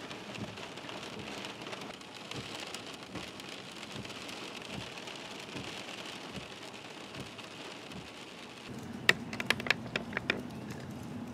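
Heavy rain hissing on a car's windshield and roof, heard from inside the cabin during a thunderstorm. About three-quarters of the way through, the sound changes to a low steady hum with a quick series of sharp clicks.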